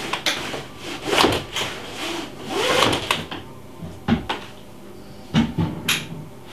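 Wooden rubbing and swishing for the first few seconds, then a few footsteps thudding on wooden floorboards.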